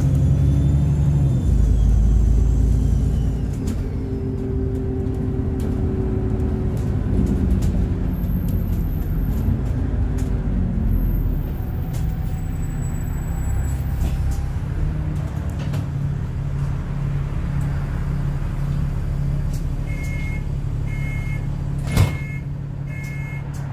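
Alexander Dennis Enviro 400 double-decker bus running, heard from on board, with a high turbo whistle falling in pitch and fading over the first few seconds as the engine eases off. Near the end come four short beeps about a second apart and one sharp knock.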